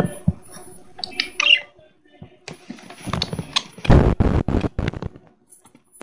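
A few short, high chirps from zebra finches in a cage about a second in, then loud rustling bursts of the camera being handled close to the microphone.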